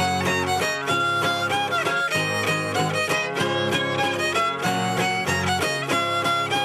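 Violin playing a lively son over a guitar accompaniment with a steady repeating bass, in the traditional folk-dance style of the region.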